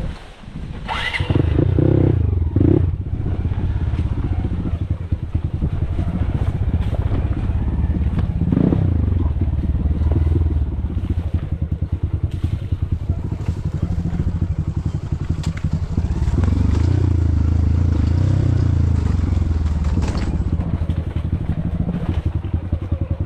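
A small engine starts about a second in and runs steadily with a fast, even firing rhythm, its speed rising and falling a few times.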